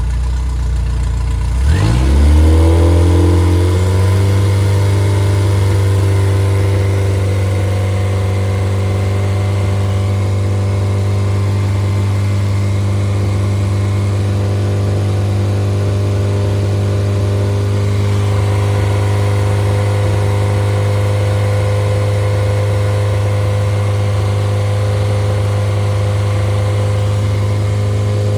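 Freshly rebuilt Triumph Spitfire 1500 inline four-cylinder engine running. About two seconds in it revs up quickly, then settles into a steady, smooth run.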